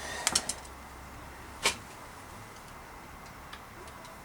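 A few short clicks and taps from handling the bicycle's rear derailleur and its gear cable while reconnecting it. The loudest, sharp click comes about one and a half seconds in, followed by a few faint ticks.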